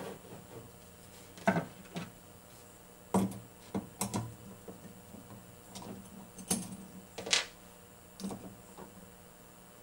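Flathead screwdriver clicking and scraping against the screws and metal housing of a gauge while the old mechanical voltage regulator is unscrewed: about ten light, irregular clicks and taps.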